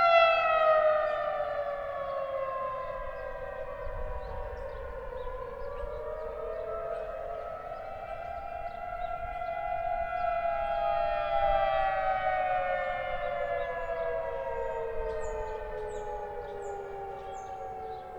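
Outdoor warning sirens sounding a test from a distance: overlapping chords of tones glide slowly down in pitch while another rises about a quarter of the way in and then falls again. The sound swells near the start and again about two-thirds of the way in.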